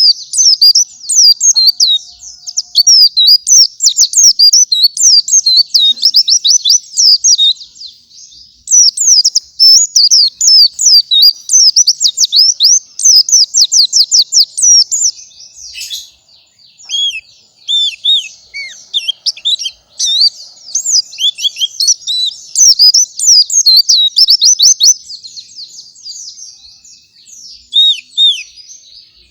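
Pleci (a white-eye) singing a fast, nearly unbroken run of high chirps and trills, with a short lull about halfway through.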